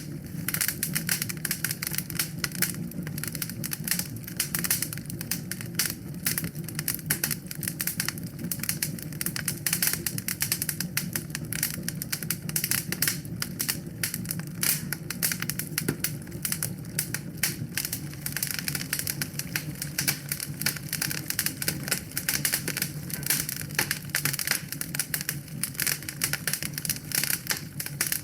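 Wood fire in a fireplace crackling: a dense, continuous run of small pops and snaps over a steady low rumble.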